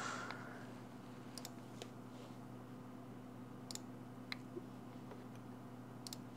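A few faint, separate clicks scattered over a low, steady electrical hum.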